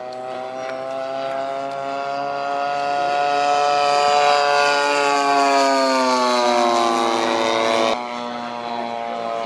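Radio-controlled P-51 Mustang scale model airplane flying past, its engine and propeller droning louder as it approaches, then falling in pitch as it goes by. The sound drops suddenly to a quieter level about eight seconds in.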